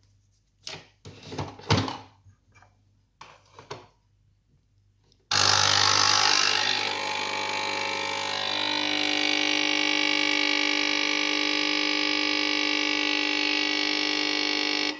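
Capsule espresso machine brewing: after a few clicks and knocks, its pump starts suddenly about five seconds in with a loud buzz and hiss. The buzz settles into a steady hum while the espresso runs, then cuts off sharply near the end.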